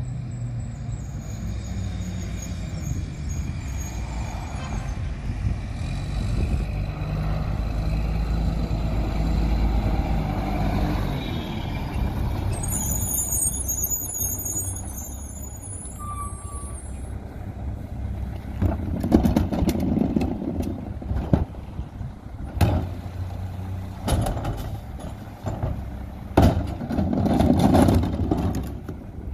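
Mack LE McNeilus rear-loader garbage truck's diesel engine running as it pulls up and stops, with a brief high squeal of its brakes about halfway through. Over the idling engine, a run of sharp knocks and thuds follow as a plastic trash cart is handled at the back of the truck.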